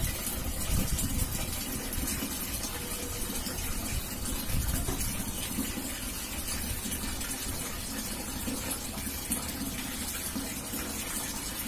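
Water running and pouring steadily, as from a tap during a dog's bath.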